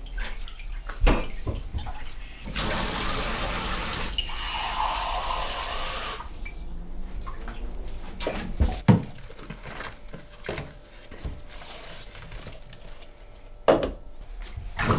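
Dishes being washed by hand in a kitchen sink: a tap runs for a few seconds, then hands slosh in soapy water, with a few knocks of crockery against the sink.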